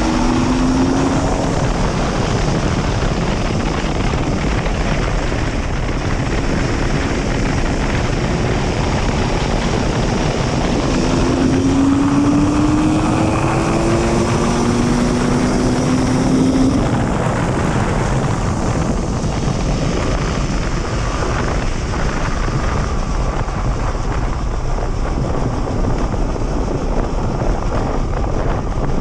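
Enduro motorcycle engine running as the bike rides along, with heavy wind noise on the microphone. The engine note rises in pitch as the bike accelerates, right at the start and again from about eleven to seventeen seconds in.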